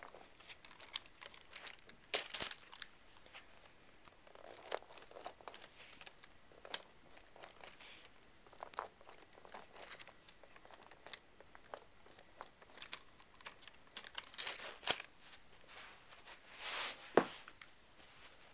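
Irregular rustling, crinkling and clicking as the Lego tracked chassis and its plastic parts are handled, with no motor running; a louder scrape comes near the end.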